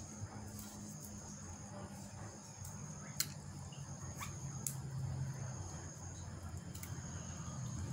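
Steady high-pitched chirring of insects, with a low steady hum underneath and a few faint sharp clicks.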